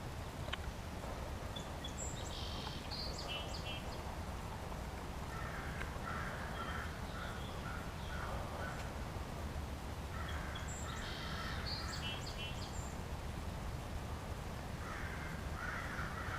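Wild birds calling, with cawing crows among them, in groups that recur about every five seconds over a steady low rumble.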